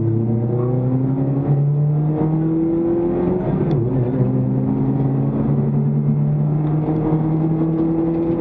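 Toyota Vios Cup race car's engine pulling hard under full acceleration, heard from inside the stripped, roll-caged cabin, its note climbing steadily in pitch as the car gathers speed.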